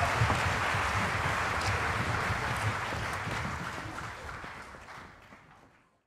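Theatre audience applauding, fading out gradually and gone to silence near the end.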